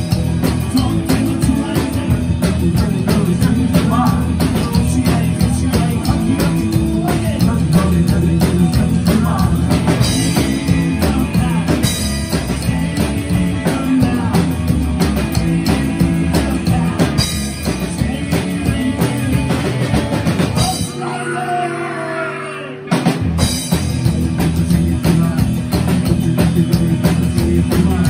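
Rockabilly band playing live: slapped upright bass, electric guitar, drum kit and a singer. About 21 seconds in, the bass and drums drop out for about two seconds in a break, then the full band comes back in.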